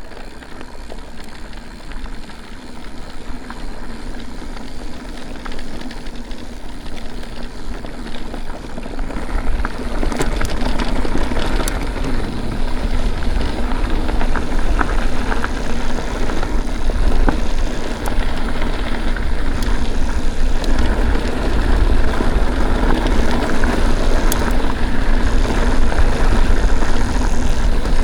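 Mountain bike riding along a trail: wind rumbling on the camera microphone with the rustle and crunch of tyres over the dirt and gravel, getting louder as speed builds about ten seconds in.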